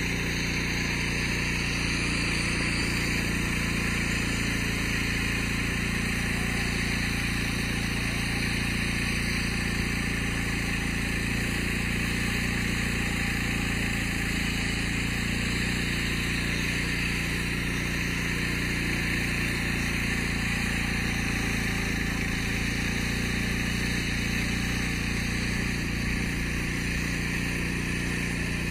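Engine of a paraglider tow winch running at a steady speed, a constant hum with a hiss on top and no change in pitch.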